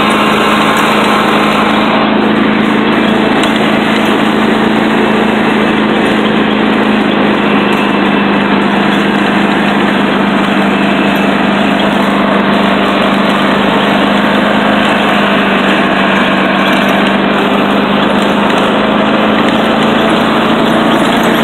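Riding lawn mower's engine running steadily while the mower drives across grass, a loud even drone with a constant low hum.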